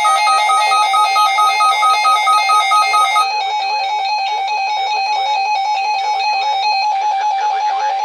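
Several NOAA weather radio receivers sounding their alert alarms at once: overlapping rapid electronic beeping at different pitches. One set of beeps stops about three seconds in while a lower beep keeps pulsing.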